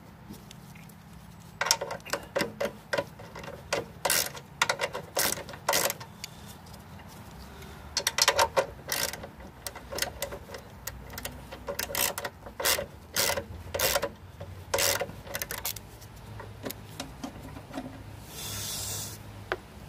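Socket ratchet clicking in short bursts, with pauses, as nuts are backed off a bolted bracket. A brief hiss comes near the end.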